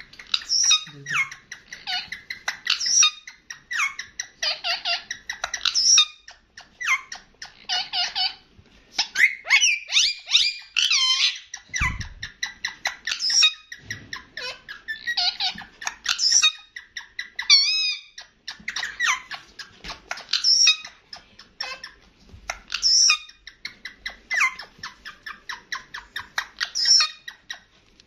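Indian ringneck parakeet chattering: a steady run of short high squeaks and chirps, with a couple of wavering, warbling calls mixed in.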